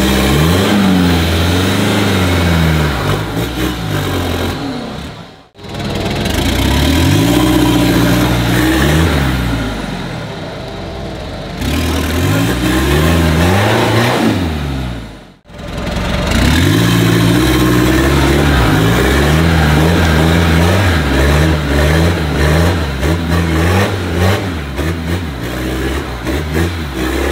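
Nissan Patrol 4x4's engine revving hard and easing off over and over as it works the truck up out of a muddy rut. The sound cuts out abruptly twice, about five and fifteen seconds in, between stretches of revving.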